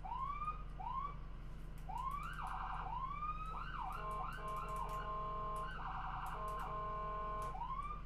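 American ambulance electronic siren cycling through its tones: short rising whoops, a rapid warble, then a steady horn-like blast held for about three seconds with a fast warble in the middle, ending on another whoop. Under it runs the low, steady rumble of the ambulance driving.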